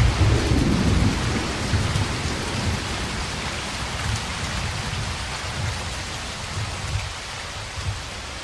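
Steady rain falling, with a low rumble of thunder that is loudest at the start and dies away over the first few seconds. The whole sound slowly gets quieter toward the end.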